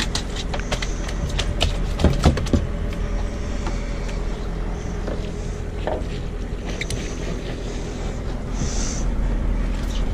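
Boat engine running steadily, a low even hum, with scattered knocks and clicks of gear and fish being handled on the deck, the loudest about two seconds in.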